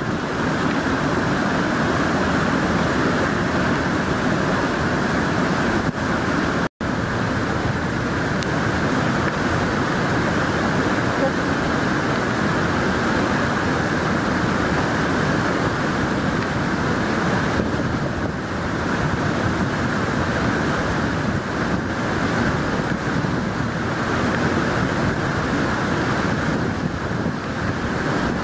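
Waterfall and rushing white water, a steady loud rush of noise. The sound cuts out completely for an instant about seven seconds in.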